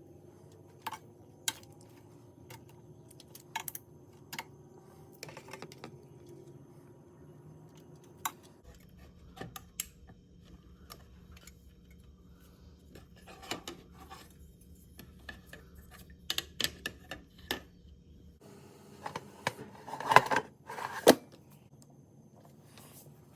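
Scattered light clicks and taps of things being handled in a kitchen, with two louder metallic clanks that ring briefly about twenty seconds in.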